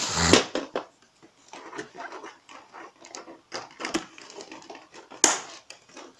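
Plastic and cardboard packaging rustling and clicking as a toy RC car is handled in its box, with a loud burst of noise at the very start and a sharp click about five seconds in.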